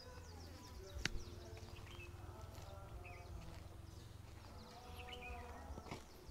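Faint outdoor ambience with small birds chirping in short, quick calls, over a low steady rumble. A single sharp click about a second in stands out as the loudest sound.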